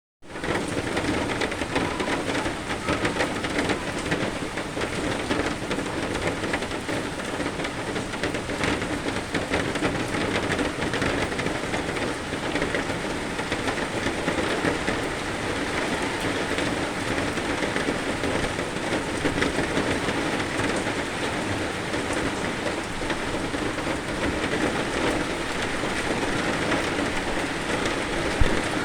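Steady heavy rain falling, a dense patter of drops on surfaces, with one brief louder knock near the end.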